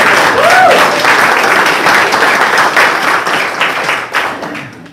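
Congregation applauding, a roomful of hands clapping in congratulation, with one short voice call about half a second in. The clapping dies away near the end.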